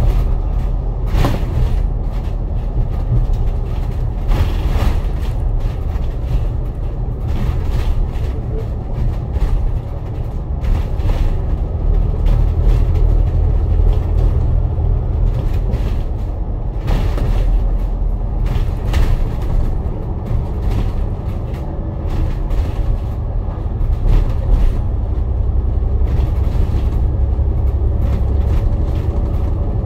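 KMB bus heard from inside the cabin while it is under way: a steady low engine and road rumble, with a few short rattles or knocks now and then.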